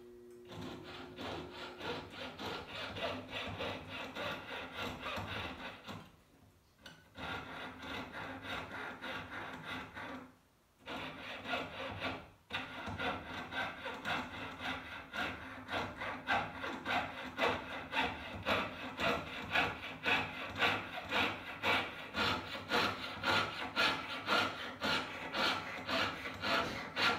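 Jeweler's saw cutting through sterling silver tubing, in steady back-and-forth strokes about two a second. The sawing stops briefly about six and ten seconds in, then resumes.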